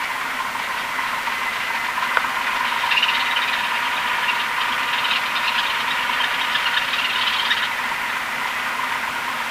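Piper PA32R's six-cylinder piston engine running steadily at low taxi power, heard inside the cabin. A raspy hiss rises over it from about three seconds in and stops near eight seconds.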